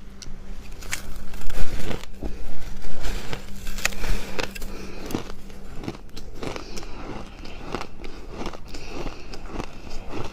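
Close-miked biting and chewing of fluffy freezer frost: dry, crisp crunches. The loudest bites come in the first few seconds, followed by a steady run of quieter crackling chews.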